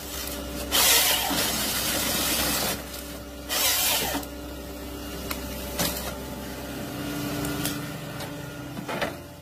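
Volvo tracked forestry harvester running, its engine a steady low hum, with two loud harsh stretches of noise from the working harvester head, a long one about a second in and a shorter one near four seconds, and a few sharp clicks.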